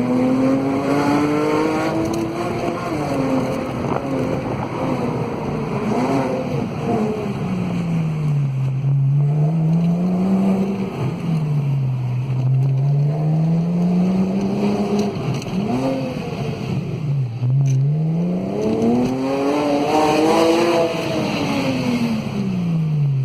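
Porsche Boxster S flat-six engine revving up and down several times. Each rise and fall in pitch takes a few seconds, and the highest, loudest climb comes near the end.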